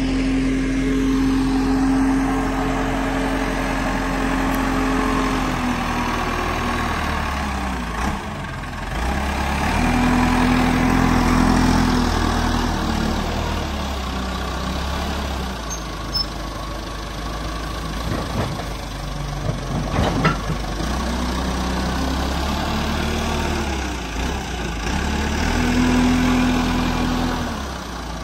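Diesel engine of a JCB 214 backhoe loader running steadily as the front bucket pushes dirt back into the hole. It revs up twice, about a third of the way in and again near the end. A few sharp knocks come about two-thirds of the way through.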